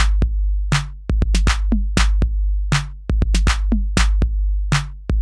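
Electronic drum-machine beat: a deep, sustained bass under a repeating pattern of sharp percussive hits, with no melody or voice.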